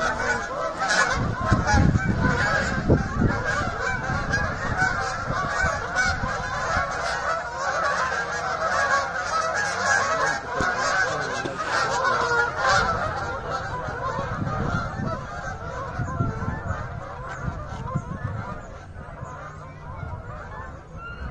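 A large flock of Canada geese honking continuously as they take off from the water and fly overhead. The massed calls grow fainter over the last few seconds.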